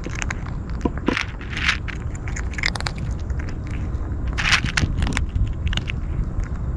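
A kitten crunching dry cat kibble, with quick irregular crunches, louder about two thirds of the way in, over a steady low rumble.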